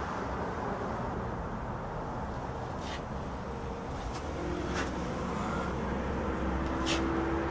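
Steady rumble of road traffic, with three brief scrapes of a putty knife working joint compound about two seconds apart.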